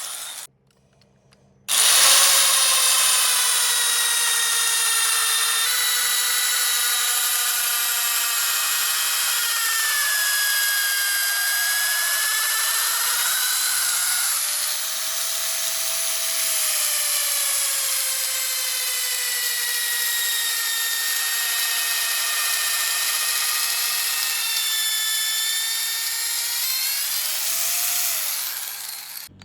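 Power drill boring into a tree stump. It cuts out briefly near the start, restarts and runs steadily, its pitch dipping and rising as it works, then winds down near the end.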